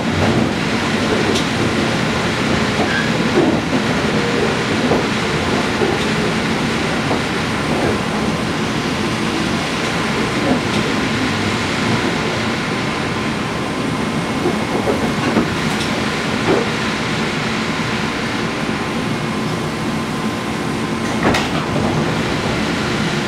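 JR Kyushu 415 series 500-subseries electric multiple unit running along the line, heard aboard as a steady rumble. A few sharp knocks come at uneven intervals as the wheels pass over rail joints.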